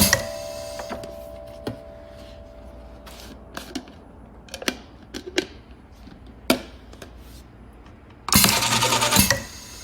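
Twist capping machine running: scattered sharp clicks and clinks of bottles and caps, one louder click past the middle, then a loud burst of noise lasting about a second near the end as the machine cycles.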